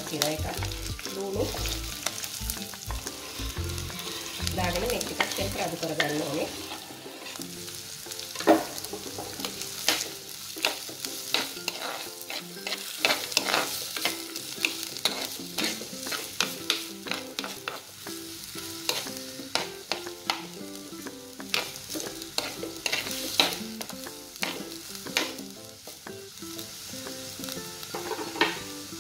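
Onions, curry leaves, pandan leaves, green chilies and a cinnamon stick sizzling in hot oil in a clay pot. At the start they are pushed in off a wooden chopping board, then a spatula stirs them, scraping and tapping against the pot many times.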